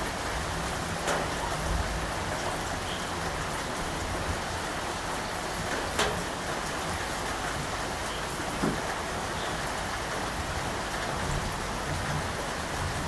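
Steady rain falling, with a few louder single drops striking, the clearest about six seconds in.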